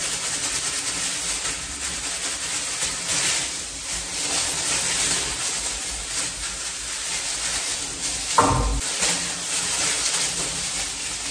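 Gloved hands working creamy hair dye through hair: a continuous crackly rubbing and squishing, with a brief thump about eight seconds in.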